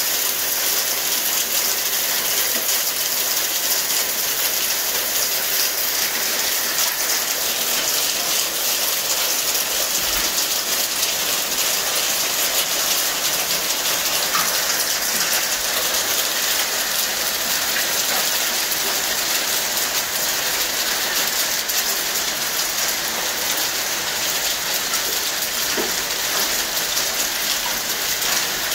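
Half-inch hail falling steadily on a concrete patio and a glass-topped table: a dense, even rattle of countless small impacts.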